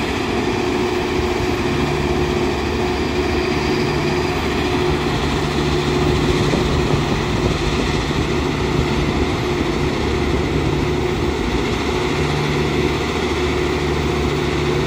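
Matisa C75-2c ballast cleaning machine at work: steady, loud running of its engines and machinery with a constant hum, and a deeper drone that swells in and drops back every few seconds.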